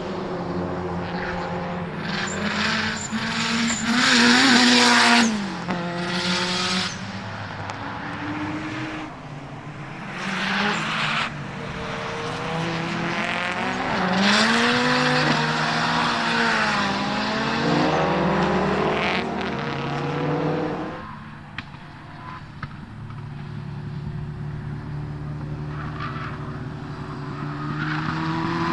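Rally-style performance cars driving at speed, engines revving up and down through the gears as they go by. They are loudest about four seconds in and again midway, then die down a little after twenty seconds before rising again near the end.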